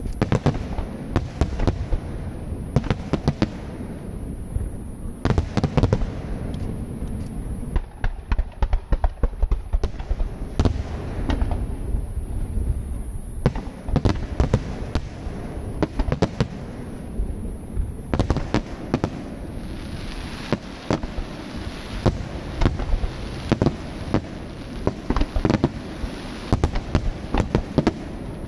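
Aerial fireworks going off in a rapid, near-continuous barrage of bangs and crackling shell bursts.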